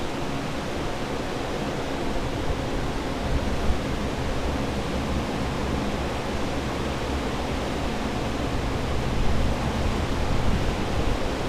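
Water-damage drying equipment running: centrifugal air movers and dehumidifiers blowing a steady whoosh with a low hum beneath, drying out a flooded room.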